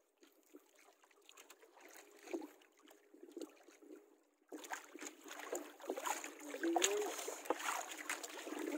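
Water lapping and splashing around a small boat, with scattered light knocks; it gets suddenly louder about halfway through.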